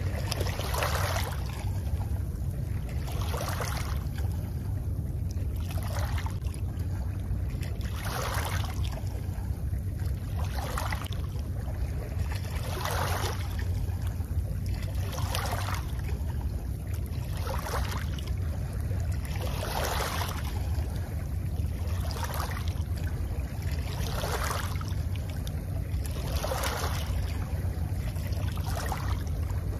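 Small waves lapping and washing over shoreline stones, one wash about every two to two and a half seconds, over a steady low rumble.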